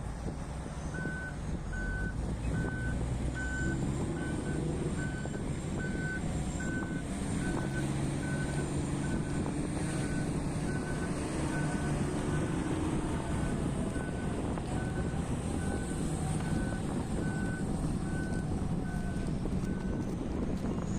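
Reversing alarm of a heavy mining machine beeping steadily, a little more than once a second, over the low, steady running of a large diesel engine as the machine backs up.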